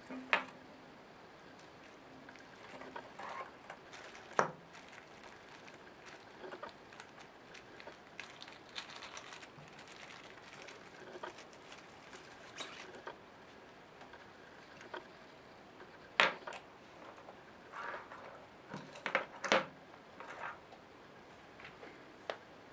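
Handling of aluminium-alloy pill-capsule keyrings being taken out of clear plastic bags: crinkling and rustling of the plastic with scattered sharp clicks and taps of the metal capsules, the loudest about half a second, four, sixteen and nineteen seconds in.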